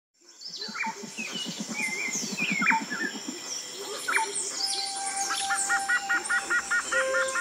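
Forest ambience of many birds chirping and whistling, fading in at the start. A low, rapid pulsing of about eight beats a second runs under it for the first few seconds, and a fast repeated trill of about five notes a second comes in near the end.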